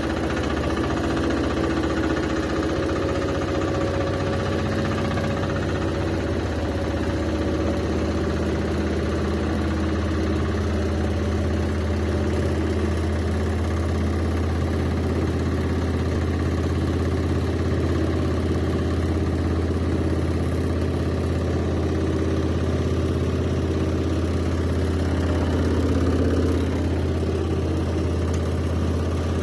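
Washing machine running and vibrating with a steady low hum.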